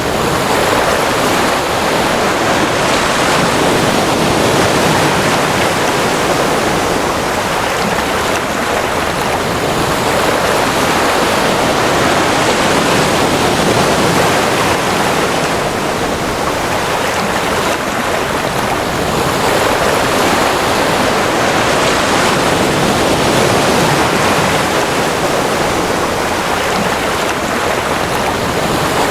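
Ocean waves washing on shore in a continuous dense rush, swelling and easing slowly every several seconds.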